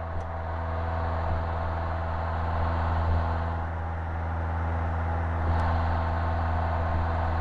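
1959 Cessna 150's four-cylinder Continental O-200 engine and propeller running steadily at full climb power.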